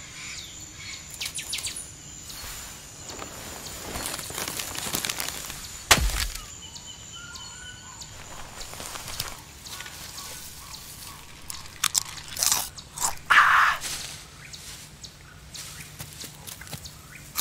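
Jungle ambience with bird calls and a faint steady high insect-like tone; a sharp crack about six seconds in. Near the end come several loud crunches of snack chips being eaten.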